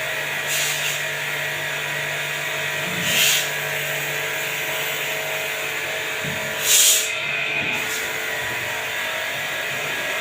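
A steady mechanical hum with three short hissing bursts, the loudest near the seven-second mark.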